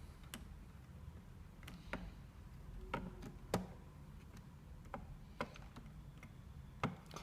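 Irregular sharp clicks and taps of small hard parts or tools being handled, about eight in all, the loudest about three and a half seconds in and near the end, over a low steady hum.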